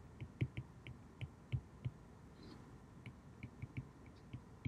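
Stylus tip tapping on a tablet's glass screen while handwriting a word: a quick, irregular series of faint clicks.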